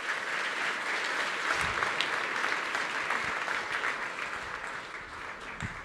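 Large audience applauding, easing off slightly toward the end.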